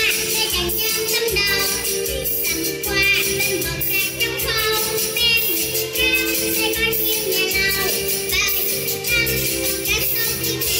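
Children's dance song played over stage speakers: a sung melody over a steady beat.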